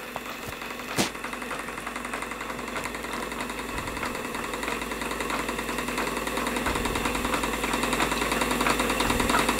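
Stuart Turner model steam engine running fast, belt-driving a plastic beam-engine water pump: a steady, rapid mechanical beat. One sharp click about a second in.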